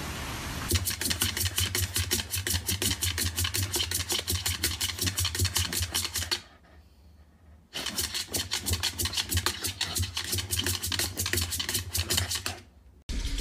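A dog's claws scratching rapidly and evenly against a hard surface, several strokes a second. The scratching comes in two long runs, broken by a pause of about a second midway.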